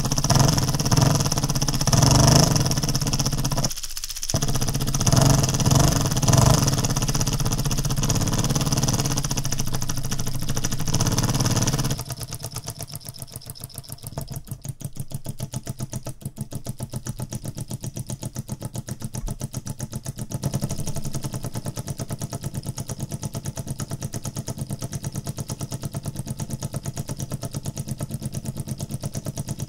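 A 3D-printed single-cylinder solenoid engine running, its solenoid plunger and crank clicking in a fast, even rhythm. About twelve seconds in the sound drops abruptly to a quieter, steady train of rapid clicks.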